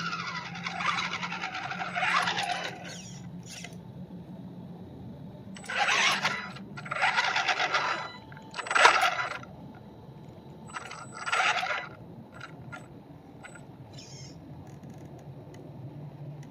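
Radio-controlled tow truck driving on asphalt. Its motor whine falls in pitch over the first couple of seconds as it slows, then comes about five short bursts of throttle with the tyres on the pavement, a second or two apart, the loudest about nine seconds in.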